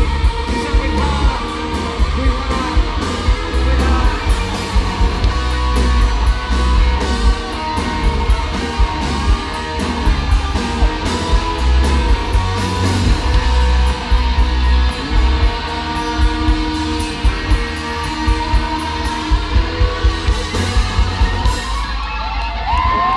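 Live rock band playing the end of a song: distorted electric guitars, bass and a steady drum beat. Near the end the drumming stops, leaving a few held guitar notes ringing.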